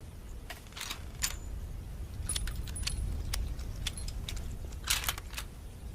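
Metallic clicks and short rattles of a Springfield rifle being handled, its action worked, as a string of separate sharp clicks with a louder cluster about five seconds in, over a steady low rumble.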